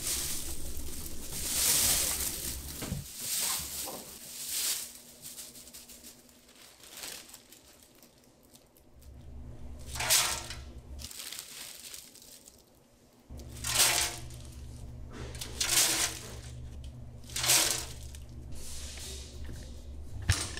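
Dry, brittle shrimp flakes rustling and crackling as they are tipped off a perforated steel tray and dropped by the handful into a stainless-steel drum, in several short bursts. A low machine hum runs underneath from about halfway through.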